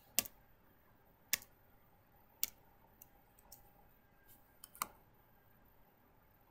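Computer keyboard keys pressed one at a time: sharp single clicks about a second apart, with a quick pair of taps near the end.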